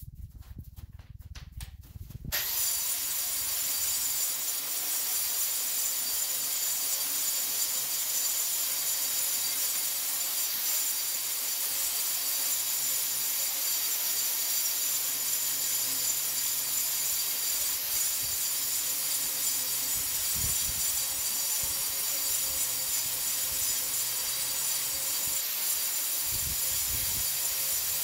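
A power tool motor starts about two seconds in and runs steadily at full speed, a loud hiss with a high whine over it, then begins to spin down at the very end.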